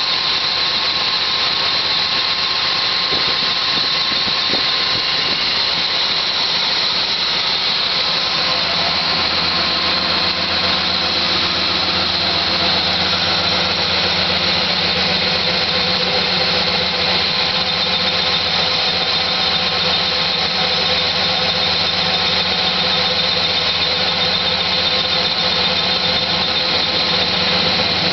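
1966 Plymouth Fury's engine running at idle under a steady high-pitched squeal. The low engine note grows stronger about nine seconds in.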